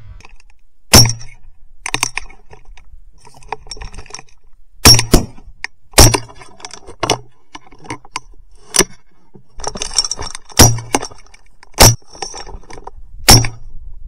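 A series of sharp knocks and clacks, about a dozen, six of them loud: at about one, five, six, ten and a half, twelve and thirteen seconds in.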